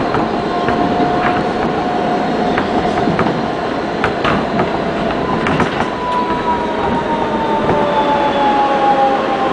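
NYC Subway R160B train heard from inside a moving car: a steady rumble of wheels on rail, scattered clicks over rail joints, and a thin motor whine that falls slowly in pitch over the last few seconds as the train slows.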